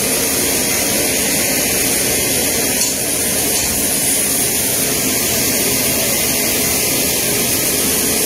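Steady jet-engine roar with a high, hissing whine, unbroken and unchanging in level: an aircraft engine running on the airfield apron.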